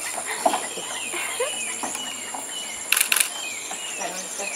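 Tropical forest ambience: birds chirping and whistling over a steady high-pitched insect drone, with a short burst of three loud rasping pulses about three seconds in.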